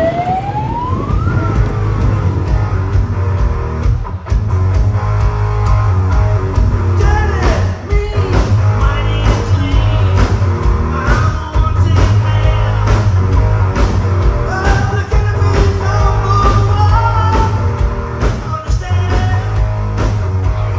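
Background rock music with guitar, bass and a steady drum beat. A rising whine sounds over it in the first second or so.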